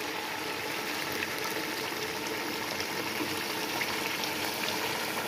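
Lamb curry gravy boiling in a nonstick wok over high heat, just topped up with boiled water: a steady bubbling hiss.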